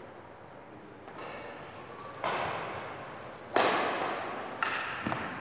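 Badminton rackets hitting a shuttlecock during a rally, several sharp cracks that echo around a gymnasium. The loudest hit comes about three and a half seconds in.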